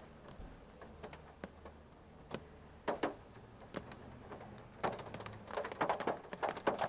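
Raindrops tapping irregularly on a parked car's roof and windshield, heard from inside the cabin. The taps come thicker about five seconds in, over a faint low hum.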